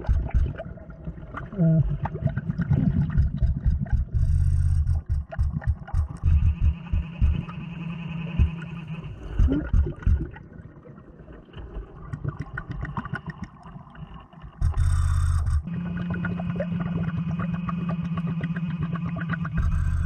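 Underwater: stones and gravel clicking and scraping as a gloved hand digs into the gravel lake bottom. About fifteen seconds in comes a loud rushing burst, followed by a steady hum.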